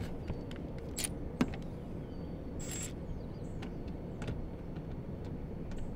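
A few sharp clicks and taps and a brief scrape as a Torx 25 screw is worked in by hand behind a car's plastic front wheel-arch liner. The loudest click comes about a second and a half in, over a steady low background hum.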